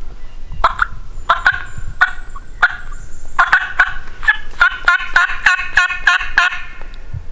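Turkey yelps blown on a mouth call by a hunter: a series of short two-tone yelps, spaced out at first, then quicker and louder for about two seconds near the end.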